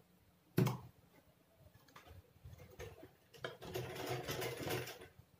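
Black domestic sewing machine stitching fabric: a sharp click about half a second in, a few light ticks, then a run of stitches lasting about a second and a half near the end.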